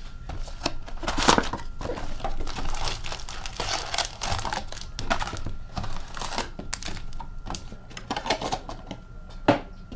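Wrapped hockey card packs being pulled out of a cardboard retail box and stacked on a glass counter: irregular rustling, crinkling and small knocks, with one sharper knock near the end.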